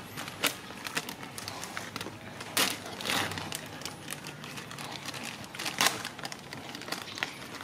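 Plastic snack packet crinkling as it is handled and opened, with a few sharp crackles standing out from quieter rustling.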